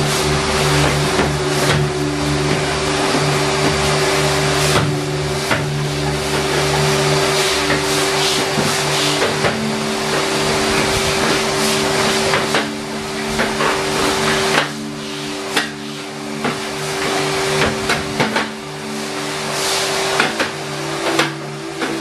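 Numatic Henry Wash spray-extraction vacuum running steadily with a constant motor whine while its floor tool is pushed across a wet concrete floor. Frequent knocks and clatters come from the tool striking the floor and the steel base frame.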